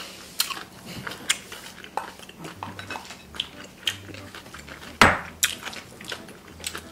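A spoon scraping and clinking against a glass bowl while the last noodles are gathered up, in scattered short clicks with one louder knock about five seconds in.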